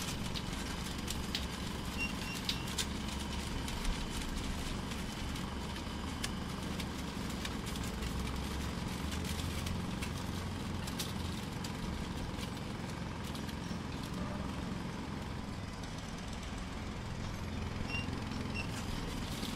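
Heavy truck engine running steadily, with a few sharp clicks a few seconds in.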